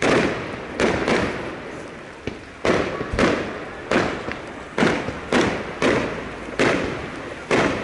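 Fireworks display: aerial shells bursting in quick, uneven succession, about a dozen sharp bangs, each with an echoing tail.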